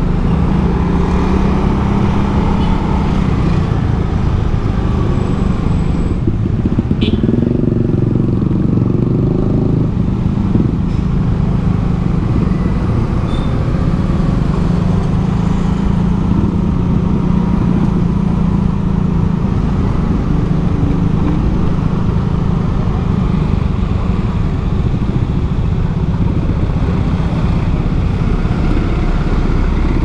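Motorcycle engine running steadily while riding slowly in traffic, its pitch rising and falling a little with the throttle, amid the noise of other motorcycles and cars.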